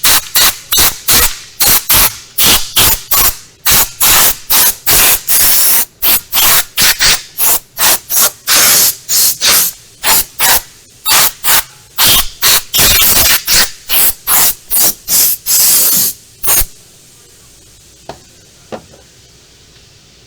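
Compressed-air blow gun fired in short, loud blasts, about two a second, blowing debris off a wiring harness in an engine bay. The blasts stop about three-quarters of the way through.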